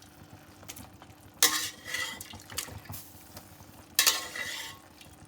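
A metal spoon scraping and clattering against a steel pot twice, about two and a half seconds apart, as pressure-cooked chicken pieces are scooped out and strained, with a few light clinks in between.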